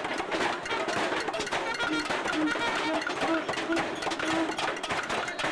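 Music playing amid a dense crowd of voices, with a run of short melodic notes about two seconds in.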